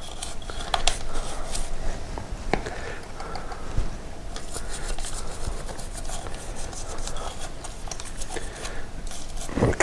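Scrubbing road grime off a motorcycle's chain area, a steady run of short, scratchy rubbing strokes with small clicks.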